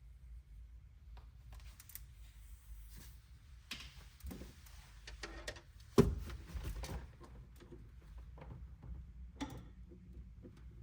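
Hands working with tools and plastic tubing: scattered light clicks, taps and rustles, with one sharp knock about six seconds in.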